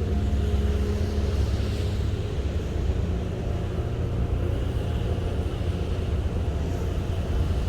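A ship under way at sea: a steady low rumble with a droning hum.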